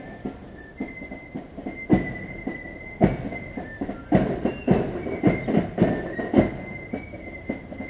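Marching flute band: flutes playing a high tune over sharp drum beats, which come about three a second from about four seconds in.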